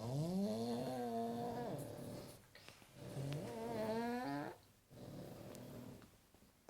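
A pug snoring: two long snores, each with a steady humming pitch that rises as it begins, then a quieter snoring breath near the end.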